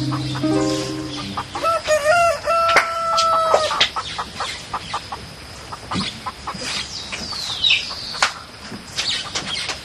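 A rooster crows once about two seconds in, one long held call, among short high chirps of small birds. Soundtrack music fades out in the first second or so.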